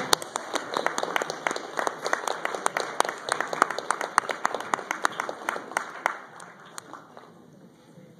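Audience applauding, with sharp individual claps standing out; the clapping thins out and dies away about seven seconds in.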